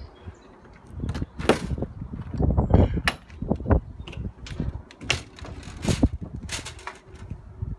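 Irregular knocks, thumps and clicks of someone climbing into a fifth-wheel trailer through its entry door, holding its grab handle.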